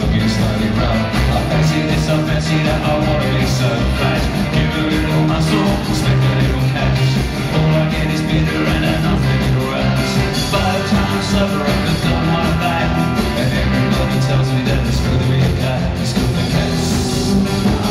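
A rock band playing live through a concert PA, with guitars, keyboards and drums.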